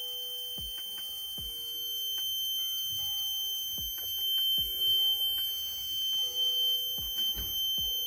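Fire alarm control panel's built-in buzzer sounding one steady high-pitched tone, signalling an alarm on the pull-station and heat-detector zone. Background music with a steady beat plays underneath.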